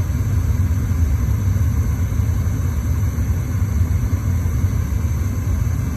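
Trane XL80 gas furnace firing with its burners lit: a steady low rumble that keeps going without change.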